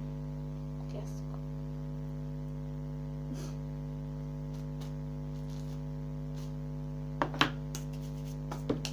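Steady electrical mains hum with a stack of pitched overtones. About seven seconds in, a couple of sharp knocks come as a small plastic crate is set down on the wooden table, with another knock near the end.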